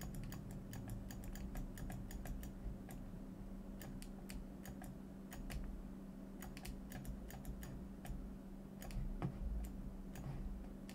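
Computer keyboard keystrokes, irregular clicks throughout, over a low steady hum.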